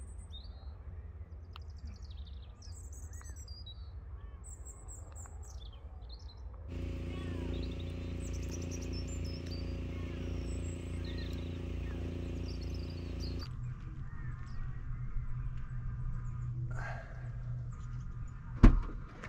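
Small birds chirping and calling over a steady low rumble, with a steady low hum for several seconds in the middle. One sharp knock near the end is the loudest sound.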